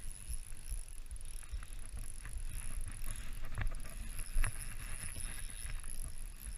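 Uneven low rumble of wind and handling noise on a body-worn camera's microphone, with two faint clicks from the fishing rod and reel gear a little past halfway.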